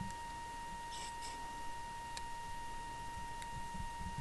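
A steady high-pitched tone, with a few faint clicks and soft knocks from small-screwdriver work on the screws of a compact digital camera.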